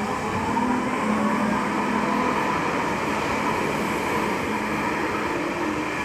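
Nuremberg U-Bahn train pulling out along the platform. Its traction motors whine, rising in pitch over the first couple of seconds and then holding steady, over the running noise of the wheels on the rails.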